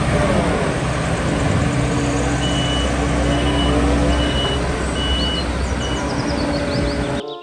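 Truck engine running steadily while a reversing alarm gives six short, evenly spaced beeps, one about every two-thirds of a second, starting about two and a half seconds in. The whole sound cuts off abruptly near the end.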